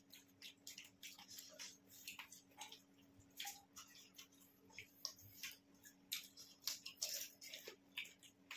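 Faint close-up eating sounds of pani puri: crisp hollow puri shells cracking and being crunched and chewed, heard as a run of irregular short crackles and clicks over a faint steady hum.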